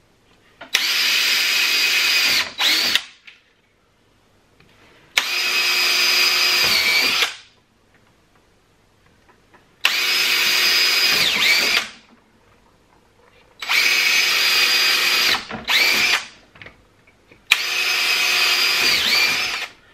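Cordless drill boring stud holes through a snowmobile's rubber track: five separate runs of about two seconds each, with the motor whining at a steady pitch and short pauses between holes. Two of the runs end with a brief extra trigger pull.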